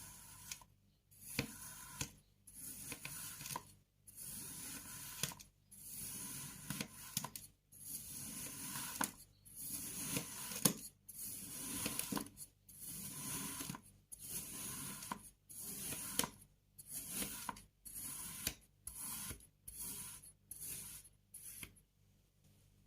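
Kinetic sand being cut with a knife, in a run of short, crunchy, gritty strokes about one a second with brief pauses between them.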